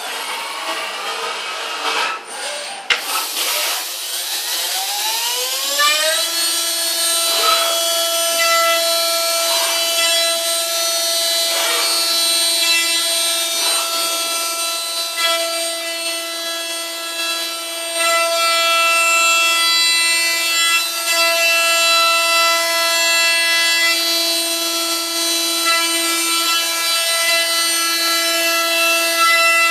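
Four high-speed spindles of a small CNC milling machine spinning up in a rising whine over about three seconds, then holding a steady, high-pitched whine with many overtones while milling small metal parts.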